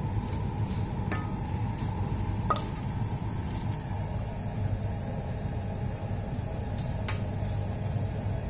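A plastic serving spoon scraping and lightly clinking against a ceramic dish and a pan as shaved kebab meat is moved, with three short clinks, over a steady low hum.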